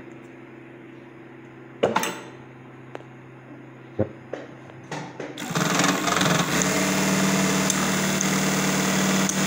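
Sunstar automatic industrial buttonhole sewing machine: a low hum with a few clicks from the pedal and mechanism, then about five and a half seconds in it starts sewing, a loud steady run of rapid stitching.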